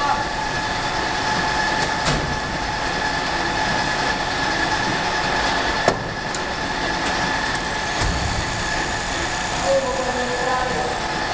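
Portable stacker belt conveyor running, a steady mechanical rumble with a constant high whine through it. A sharp click sounds about two seconds in and another about six seconds in.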